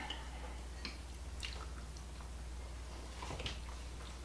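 A person chewing a forkful of soft, creamy no-bake cherry dessert: faint mouth sounds with a few light clicks, over a low steady hum.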